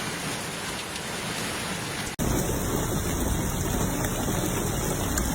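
Steady rushing noise of a rainstorm. About two seconds in, a sudden cut brings in a louder, deeper rushing noise.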